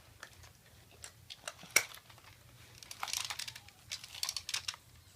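Plastic Imaginext toy jet being handled and worked: scattered clicks with one sharp click, then two short runs of rapid plastic clicking and rattling about three and four seconds in.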